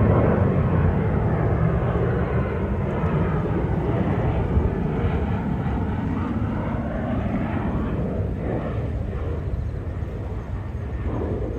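Jet airliner climbing out after takeoff, its engines making a loud, steady rumble that is strongest at first and slowly fades.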